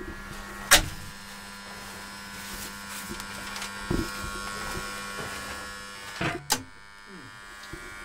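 Steady electric hum and whine from the old elevator's machine-room equipment, with a sharp click just under a second in. About six seconds in the hum stops with a couple of clicks and a short falling tone.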